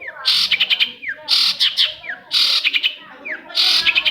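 Long-tailed shrike (cendet) singing a repeated phrase about once a second, four times: a short downward-sliding note, then a harsh rasping chatter.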